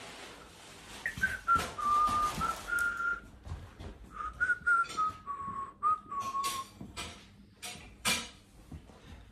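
A person whistling a short tune in two phrases, the pure whistle tone stepping between notes. Near the end come a few short knocks or clatters.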